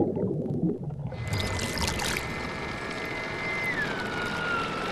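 A small motor whines at a high pitch over water noise; splashing hiss comes with it at the start. Near the end the whine drops in pitch.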